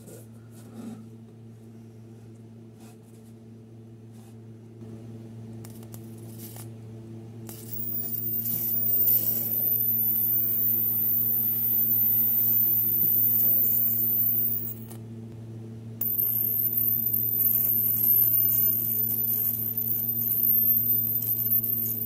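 Homemade plasma lighter, a high-voltage arc from CCFL inverter transformers, hissing across its spark gap with a steady high-pitched whine. It comes on about seven and a half seconds in, cuts out briefly around fifteen seconds, and comes back on.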